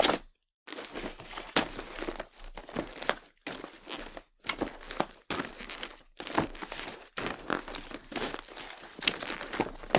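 Footsteps crunching over a loose, crunchy surface at a steady walking pace, about two steps a second, with a brief silent break just after the start.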